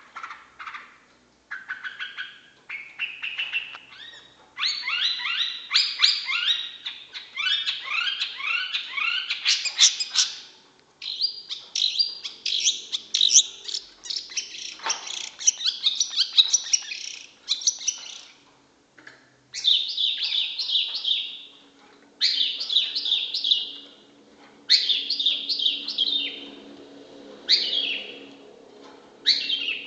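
Long-tailed shrike (cendet) singing: a string of rapid chattering phrases, each a second or two long, with short breaks between them.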